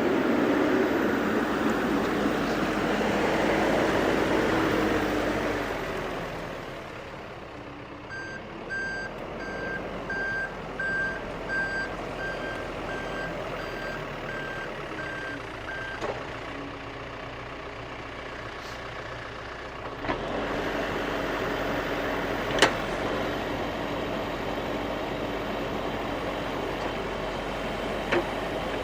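Backhoe's diesel engine working steadily, louder for the first few seconds. Its reverse alarm beeps evenly, about one and a half beeps a second, for several seconds in the middle. Two sharp knocks come later.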